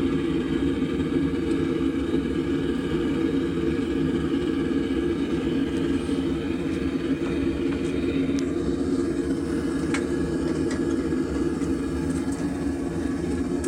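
Propane forge burner running with a steady, even rushing noise, melting a charge of aluminium cans; a few faint ticks come in the second half.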